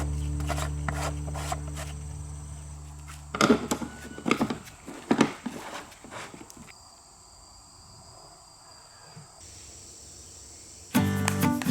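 Acoustic guitar music dies away, then a few seconds of sharp knocks and clicks, followed by a faint steady high-pitched tone over quiet background noise. Strummed guitar music starts again near the end.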